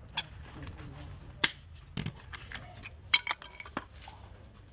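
Several sharp clicks and taps as a knife blade works along the seam of a turned, polished wooden sphere and its two halves are prised apart by hand, over a low steady hum.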